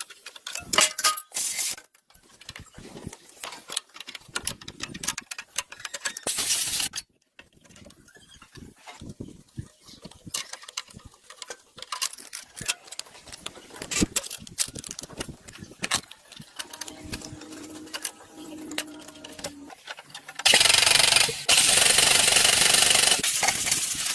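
Metal tools and parts clinking and knocking in irregular taps, then a loud, steady rushing noise for the last few seconds.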